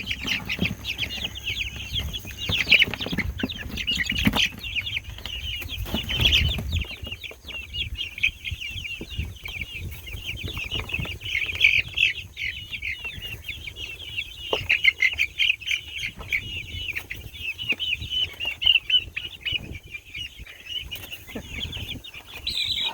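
A flock of young brooder chickens peeping continuously in a dense, high chatter. In the first several seconds there is also wing flapping and low bumping as the birds are moved into the pen.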